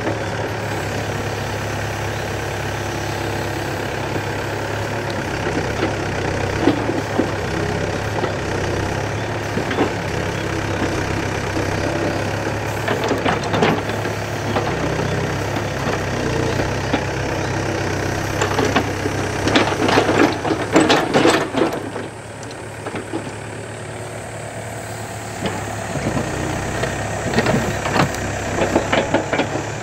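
Yanmar B7 mini excavator's diesel engine running steadily while it digs, with the bucket clattering and scraping through soil and roots in several bursts, the busiest about two thirds of the way through. The engine eases off for a few seconds just after that.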